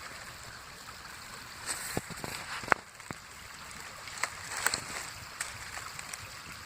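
Partly frozen creek running steadily, with a few scattered sharp clicks and knocks, the loudest a little before the middle.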